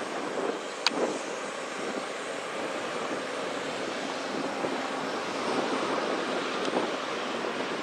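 Airliner engine noise: a steady rushing sound with no clear pitch, with a brief sharp click about a second in.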